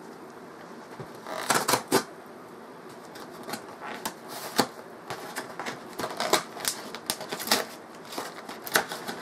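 Cardboard mailer box being torn open by hand along its tear strip: irregular crackling rips and clicks, with a dense cluster about a second and a half in and scattered ones after.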